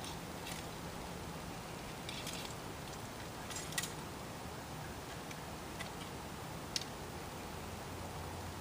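Percussion musket being reloaded by hand: a few light clicks and a short rattle over steady low background noise.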